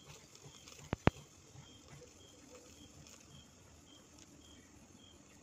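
Two sharp clicks close together about a second in, over faint, evenly repeated high chirps, about one every 0.6 s, typical of a cricket.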